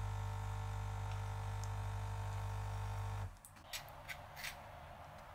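Coffee machine humming steadily as it dispenses coffee, cutting off about three seconds in. A few short clinks of a knife against toast and an enamel plate follow.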